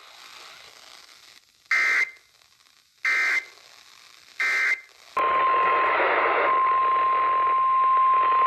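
Three short, shrill warbling data squawks about a second and a half apart: the EAS/SAME end-of-message code that closes a weather radio alert. About five seconds in, a steady single-pitch NOAA Weather Radio 1050 Hz warning alarm tone starts over radio hiss.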